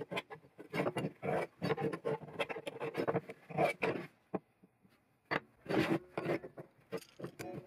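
Steel knife blade and metal tools handled on a wooden workbench: irregular clicks, taps and short scrapes of metal on wood, with a brief quiet spell about halfway through before more knocks.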